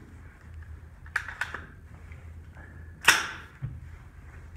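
A single suppressed shot from a semi-automatic 6.5 Grendel rifle with a Thunder Beast Ultra series suppressor, about three seconds in, sharp and loud with a short ring-out. Fainter sharp clicks and knocks come twice about a second in and again just after the shot.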